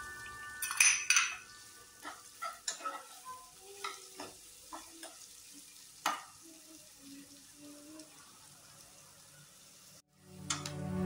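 A steel spoon scrapes and knocks against a nonstick kadai as chopped onions are stirred in a little hot oil, with faint frying sizzle underneath; the knocks are loudest about a second in and again around six seconds. Piano music comes in near the end.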